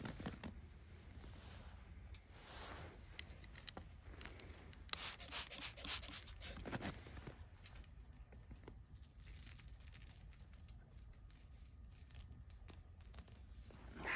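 Rustling and rubbing of a puffy winter jacket and a glove being handled, with a cluster of crisp scratchy clicks about five to seven seconds in.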